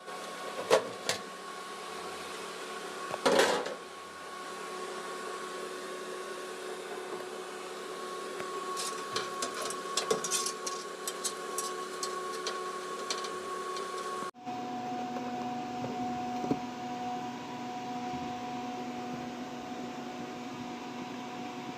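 Steady mechanical hum with a few knocks near the start and a run of light clicks and taps in the middle. About two-thirds of the way through, the hum abruptly changes to a different, steady pitch.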